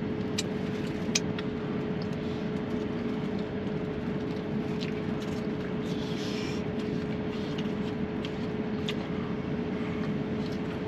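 Steady low hum with one constant pitched tone running through it, with scattered small clicks and a short rustle about six seconds in.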